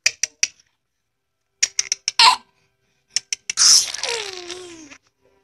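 Baby laughing: a short squeal about two seconds in, then a longer giggle whose pitch falls, with quick sharp clicks in small clusters between them.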